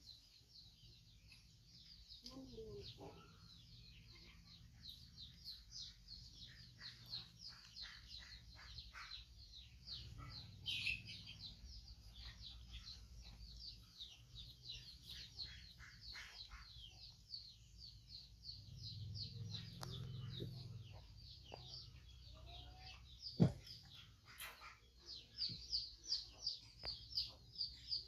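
Small birds chirping steadily in the background, a quick run of high notes several times a second, with one sharp knock about twenty-three seconds in.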